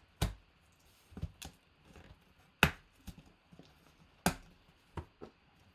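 Hands knocking and pressing against a cardboard box: irregular sharp taps and knocks, about eight in all, with the two loudest about two and a half and four seconds in.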